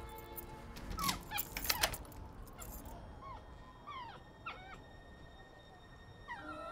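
A small dog whimpering: a string of short, high, wavering cries starting about three seconds in. A few sharp clicks and knocks come earlier, about a second in.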